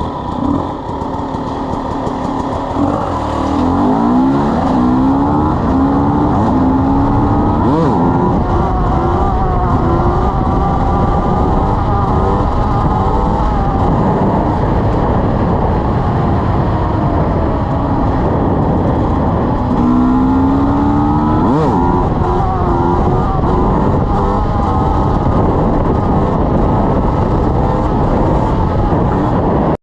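KTM 300 EXC Six Days' two-stroke single-cylinder engine running hard, its revs repeatedly climbing and dropping, with sharp rising sweeps about 3 seconds in and again about 20 seconds in.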